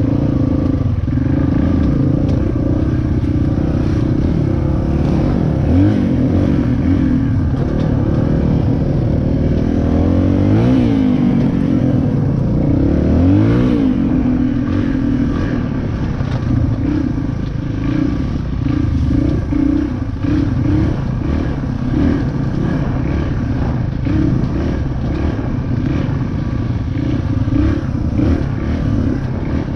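450 dirt bike engine being ridden, revving up and down. Its pitch climbs as it accelerates about six, ten and thirteen seconds in, then it runs lower and choppier, with rattling from the bike.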